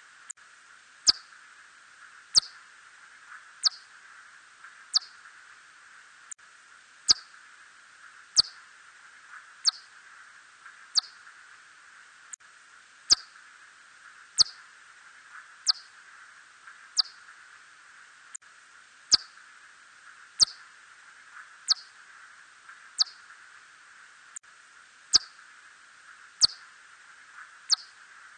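Red bat (Myotis rufoniger) calling: short, sharply falling chirps repeated evenly, about one every 1.3 seconds, over a steady hiss.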